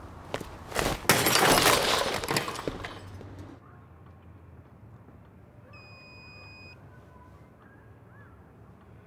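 A loud crash of something smashing and shattering, several hits running together for about three seconds, then cutting off abruptly. A single short electronic beep follows a few seconds later.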